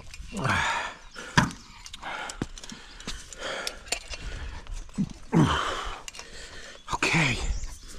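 A man's wordless breath sounds: three loud exhaled groans, each falling in pitch, about half a second in, about five seconds in and near the end, with sharp clicks and knocks between them.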